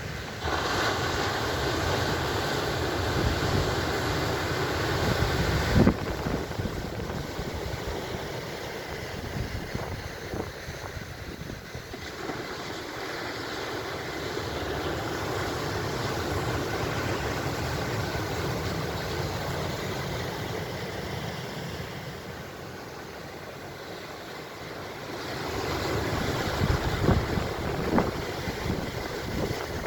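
Ocean waves breaking and washing ashore, surging louder at the start and again near the end, with wind rumbling on the microphone. A sharp knock about six seconds in.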